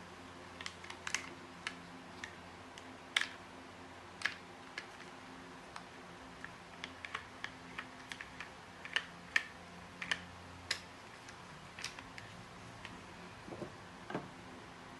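Irregular light clicks and taps of small hard objects being handled, over a faint steady hum that fades out near the end.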